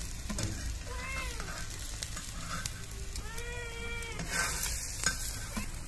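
A cat meowing twice, a short meow about a second in and a longer one about three seconds in, each rising then falling in pitch, over a steady hiss.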